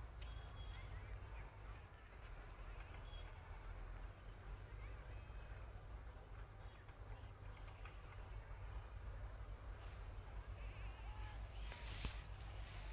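Insects trilling at a high pitch, a fast pulsing trill that smooths into a continuous buzz about a third of the way in, over a low rumble.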